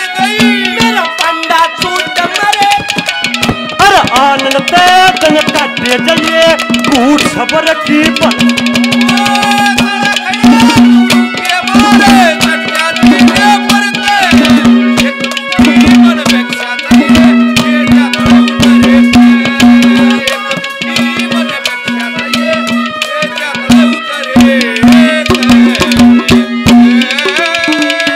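Haryanvi ragni folk music with no singing: hand drums played in a fast, dense rhythm under a steady held drone note and a gliding melody line.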